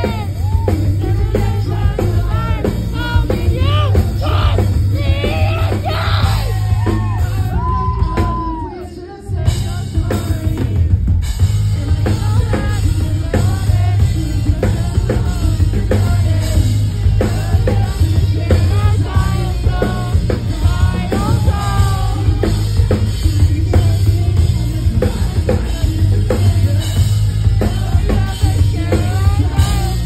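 Live rock band playing loud: electric guitar, drum kit and vocals. The music drops out briefly about nine seconds in, then the full band comes back in.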